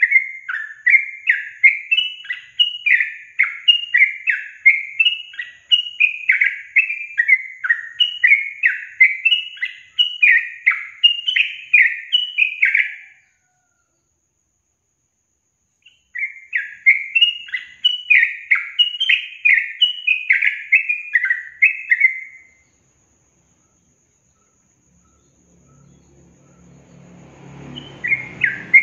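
Yellow-vented bulbul (trucukan) chattering in long runs of rapid, repeated, bubbly notes. It stops about 13 seconds in, resumes about three seconds later, stops again around 22 seconds, and starts up again near the end. Before that last start, a faint hiss and low hum rise.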